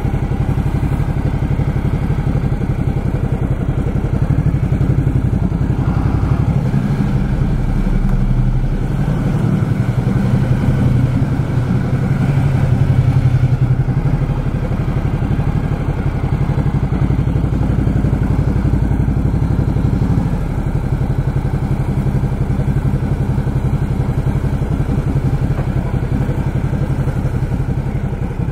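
Ducati Multistrada motorcycle engine running at low revs, a steady throb as the bike is ridden slowly. It picks up a little in the middle and eases back about twenty seconds in.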